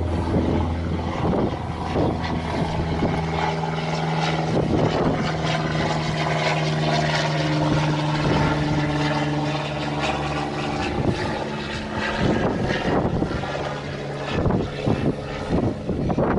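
An aircraft flying by, its engine drone holding a steady pitch for several seconds through the middle, over wind noise and scattered short knocks and rustles.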